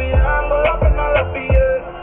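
Background music with a steady beat of deep bass kicks under a sustained melody.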